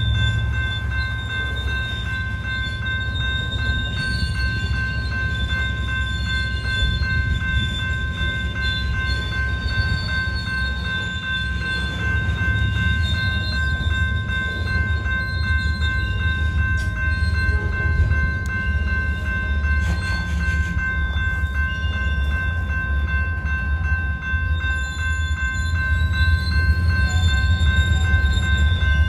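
Covered hopper cars of a freight train rolling steadily over a grade crossing, with a heavy rumble of wheels on rail. Over it, the crossing's General Signals type 2 electronic bell rings continuously. Faint wheel squeal comes in near the end.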